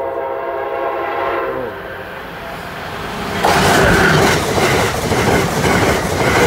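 An approaching Amtrak passenger train sounds its horn, a steady chord that drops in pitch and stops about two seconds in. About three and a half seconds in, the train rushes past at speed with loud wheel and rail clatter.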